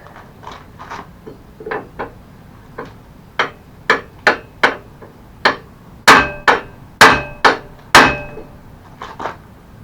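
Hammer blows driving a stuck metal hinge pin out of a mobility scooter, with a metallic ring after each strike. About eighteen irregular strikes, light taps at first, then the hardest blows from about six to eight seconds in; the pin is only just starting to move.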